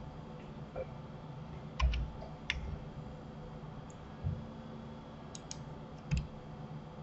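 Computer mouse and keyboard clicks: a few short, scattered clicks, some in quick pairs, about two seconds in and again near five and six seconds, over a faint steady hum.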